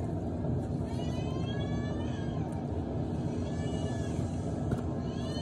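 An animal calling three times, short high calls that rise and fall in pitch, over a steady low rumble.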